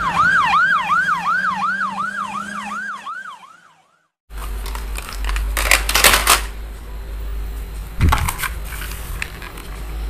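Police car siren in a fast yelp, its pitch sweeping down and jumping back up about three times a second, fading out after about three seconds. After a brief silence, plastic toy vehicles clatter and knock as they are handled.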